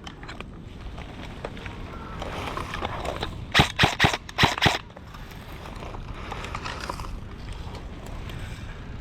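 Airsoft gun firing a quick string of about six sharp shots, a little over three and a half seconds in.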